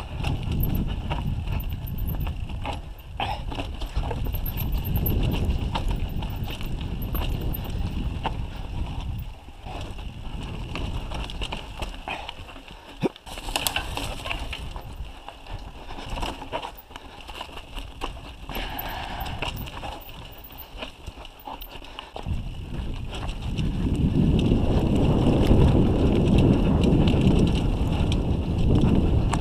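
Mountain bike rolling downhill over a rocky trail: wind buffeting the microphone, with tyre noise and scattered rattles and knocks from the bike over stones. The wind rumble eases in the middle and grows louder again near the end.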